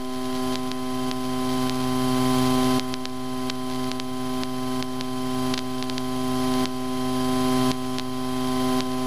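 Cessna 152's four-cylinder Lycoming engine and propeller running at taxi power, heard inside the cabin as a steady drone of several fixed pitches. Its level creeps up and drops back abruptly about once a second.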